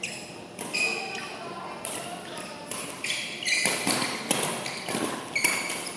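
Badminton players' shoes squeaking on a painted court floor in a doubles rally, with a few sharp racket hits on the shuttlecock; the squeaks and hits come thicker from about halfway through.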